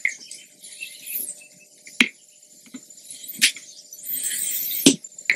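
OneUp EDC tap being worked back and forth in a bike fork's steerer tube with a tap wrench: a few sharp metal clicks and clinks, and about a second of scraping near the end as the tap cuts threads.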